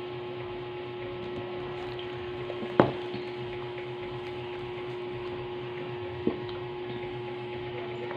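A steady hum holding one clear tone, with a sharp knock about three seconds in and a lighter knock about six seconds in.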